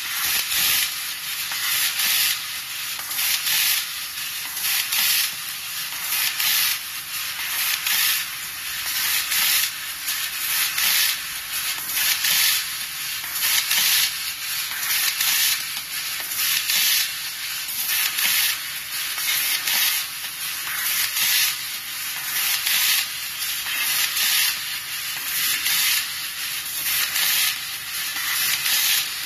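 Fiber laser with a Raytools cutting head cutting 3 mm aluminium sheet: a steady hiss with a louder, higher hissing burst roughly every second and a half as each small hole is cut.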